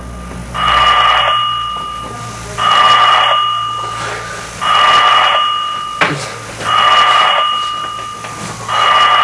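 Electronic ringing tone going off in short rings about every two seconds, five in all, each ring a steady electronic tone.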